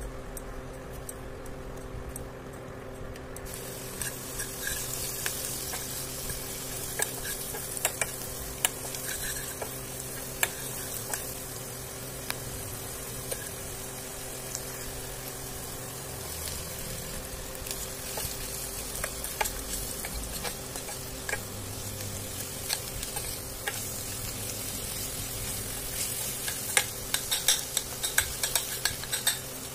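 Onion-and-spice masala frying in mustard oil in a steel kadhai: a steady sizzle that strengthens a few seconds in, while a steel spoon stirs and clicks against the pan, the clicks coming thickest near the end.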